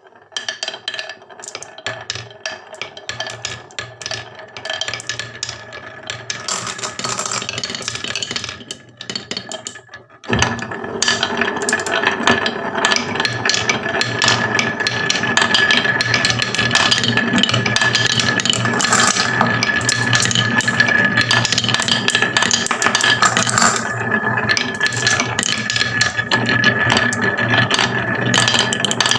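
Marbles clicking and rattling as they roll down a wooden marble run. About ten seconds in, a louder, steady mechanical whirr with a constant high whine joins the clatter.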